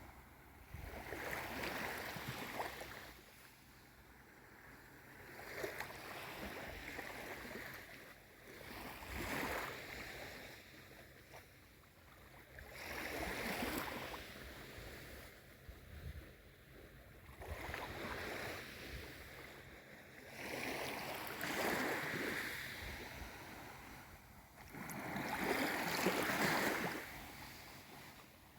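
Small waves of a calm sea washing in and drawing back, about seven gentle swells, one roughly every four seconds.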